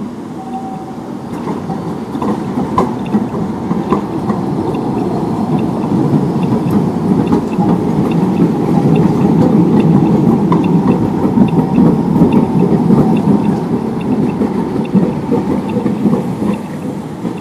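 Articulated low-floor tram passing close through a curve: the rumble of its wheels on the rails and its drive builds over several seconds, is loudest as it goes by, then eases off, with a few sharp clicks along the way.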